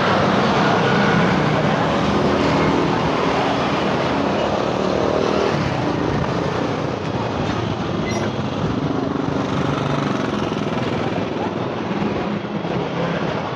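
Steady street traffic, mostly small motorbike engines running and passing by.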